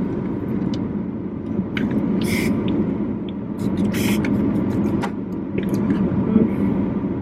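A car's engine idling with the air conditioning running, a steady low hum, with a few short rustles about two and four seconds in.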